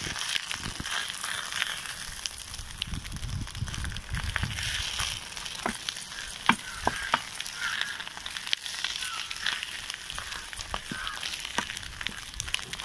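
Crackling, rustling noise of a steel bowl pressing and smoothing moist rice poda pitha batter in a pan lined with fresh green leaves, the leaves crinkling under it, with scattered sharp clicks of metal on metal.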